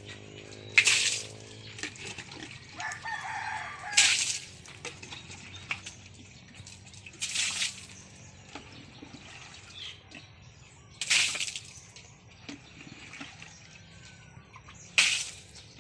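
Water poured from a scoop into a pig trough, splashing five times, each a short burst, about every three to four seconds.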